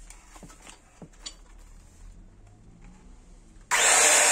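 A few light handling clicks, then near the end a handheld electric circular saw switches on and runs loudly at full speed, with a high motor whine.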